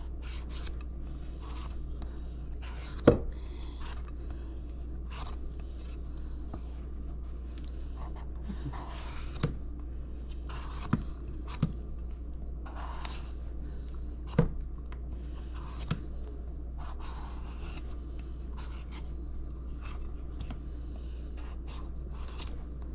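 Sharp kitchen knife cutting and scraping mango in short, irregular strokes, with a few sharp knocks, the loudest about three seconds in.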